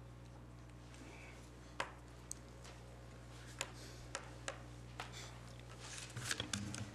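Quiet room tone with a steady low hum, broken by scattered faint clicks and taps, and some rustling and shuffling near the end.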